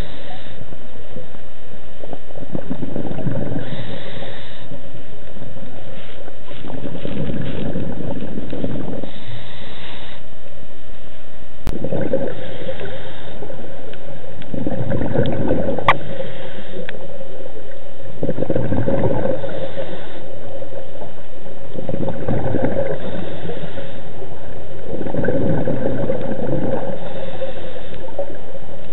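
Scuba diver breathing through a regulator underwater: a hissing inhale followed by a low rush of exhaled bubbles, repeating every three to four seconds. A couple of sharp clicks stand out near the middle.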